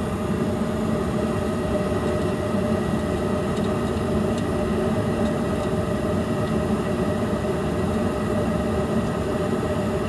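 Trane S9V2 gas furnace running at high fire: a steady mechanical hum with a few even tones held above it.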